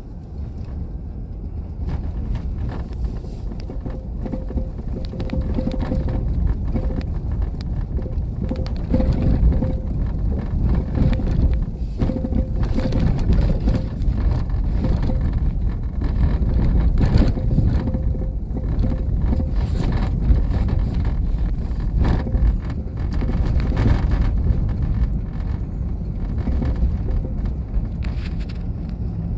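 Road noise heard inside a van driving on a bumpy sand road: a steady low rumble with frequent short knocks, growing louder over the first couple of seconds.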